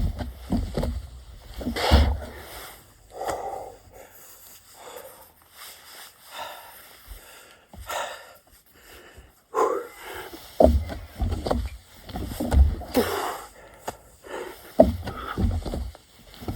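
A person doing burpees, with heavy, repeated breaths through the exercise and dull thuds of landing, strongest in the second half.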